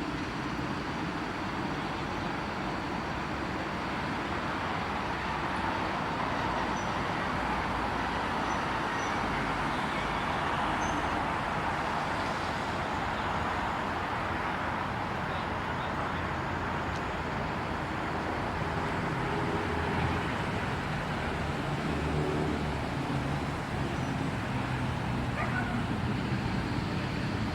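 PKP EP07 electric locomotive moving during shunting, a broad running rush that swells to its loudest about halfway through and then eases, with a low hum in the second half.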